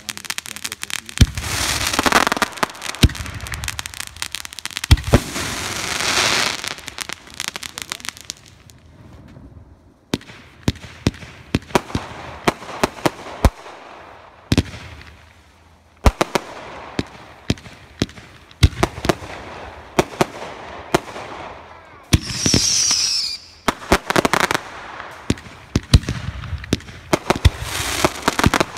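Fireworks going off: Roman candles and aerial shells firing in an uneven string of sharp bangs and pops, with stretches of crackling hiss between them. The firing eases off twice, then picks up again.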